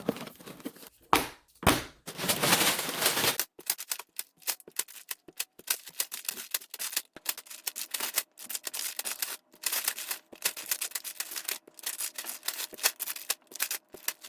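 Unboxing a building-block set: packaging and plastic bags handled with a run of quick clicks and crackles, and a denser stretch of rustling about two to three seconds in.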